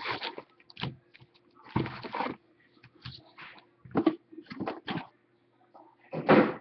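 Hockey card boxes and packs being handled and opened: irregular rustling, crinkling and scraping of cardboard and pack wrappers in uneven bursts, the loudest near the end.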